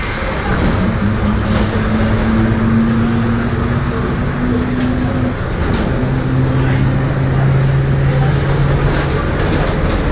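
Mercedes-Benz OF-1721 city bus under way at low engine revs, its differential droning under the road and cabin noise. The drone shifts to a lower pitch about six seconds in.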